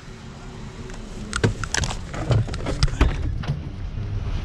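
A run of knocks, clicks and rattles as gear is handled and set down inside a Jeep, over a steady low rumble.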